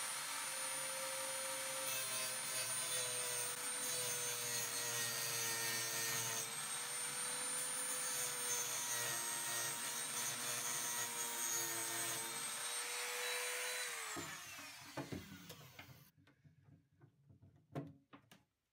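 Handheld rotary tool with a cutting wheel running at high speed, a steady high whine, as it cuts a slot into the head of a stuck old hinge screw so that a flat screwdriver can get a grip on it. The motor spins down with a falling whine about three-quarters of the way through, and a few light clicks of metal on metal follow.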